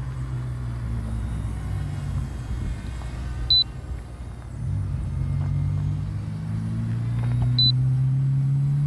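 Low steady hum that climbs slowly in pitch over the second half, with a short high electronic beep about every four seconds, like a drone remote controller's warning beep.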